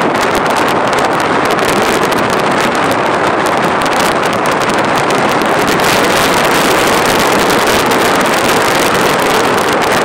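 Loud, steady rush of wind buffeting the microphone through the open window of a moving road vehicle, with crackling gusts, over the vehicle's running and road noise.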